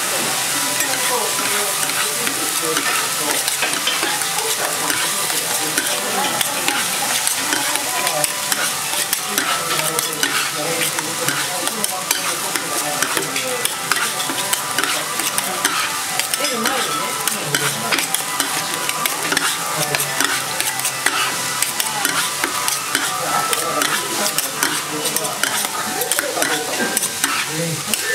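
Monjayaki batter and chopped cabbage sizzling on a hot teppan griddle while metal spatulas chop and scrape through it, with frequent sharp clicks of the blades against the plate.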